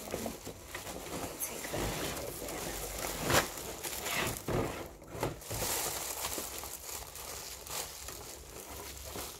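Plastic wrapping crinkling and a cardboard box rustling as a bagged tower fan is pulled out of its box, with one louder, sharp crinkle about three seconds in.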